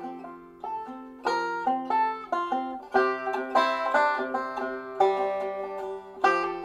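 Background music: a banjo picking quick plucked notes over held bass notes, in a bluegrass or country style.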